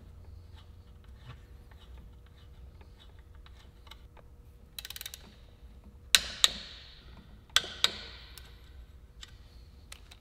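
Hand tools working the bolts of a throttle body: faint metal ticking, a short run of ratchet clicks about five seconds in, then four sharp metal clinks with a ringing tail between about six and eight seconds.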